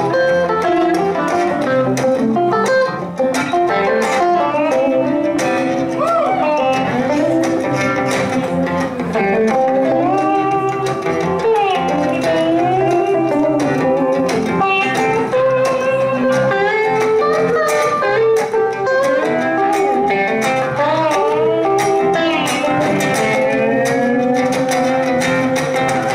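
Electric guitars playing a live blues-rock instrumental passage: a lead line full of bent notes over chording guitars.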